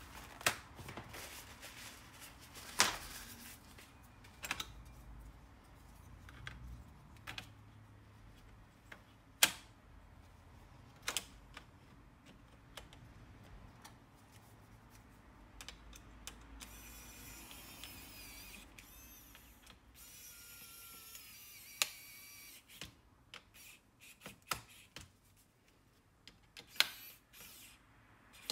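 Scattered sharp clicks and light knocks of small parts and tools on an open laptop's plastic and metal chassis as the heatsink and fan assembly is fitted. A high squeaking scrape runs for a few seconds past the middle.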